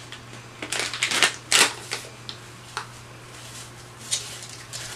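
Rustling and crinkling as a makeup wipe is pulled out and handled: a cluster of short, scratchy bursts in the first two seconds, then a few fainter ones.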